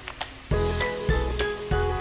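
Background music with a steady beat; the bass comes back in about half a second in.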